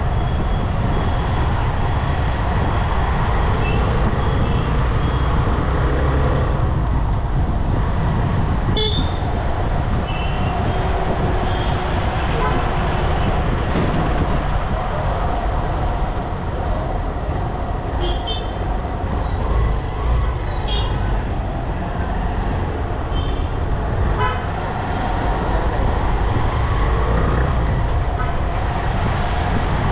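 Road traffic noise heard from a moving vehicle: a steady low rumble of engine and tyres, with short vehicle horn toots from the surrounding traffic several times.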